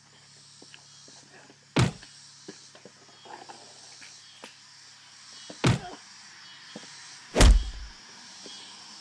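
Three loud, sharp bangs: the second comes about four seconds after the first, the third under two seconds after that. The third is the heaviest, with a low boom.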